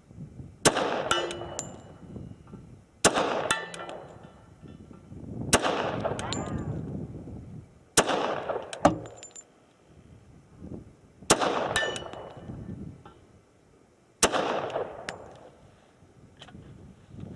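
HK Mark 23 .45 ACP pistol firing a slow string of single shots, two to three seconds apart, each report followed by a short echo. Light metallic pings follow some of the shots.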